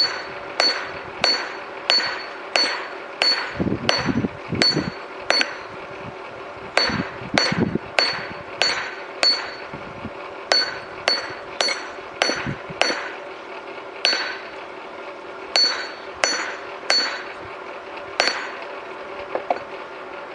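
Hammer blows on red-hot high-carbon steel held on a steel block anvil, about two blows a second in runs of several with short pauses, about two dozen in all. Each blow rings out briefly and clearly. The steel is being drawn out while still at forging heat. The blows stop near the end.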